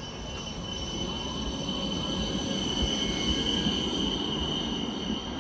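A Helsinki low-floor articulated tram rolling past at a stop, its wheels squealing on the rails with a steady high-pitched squeal over running rumble. It grows louder toward the middle and eases slightly near the end.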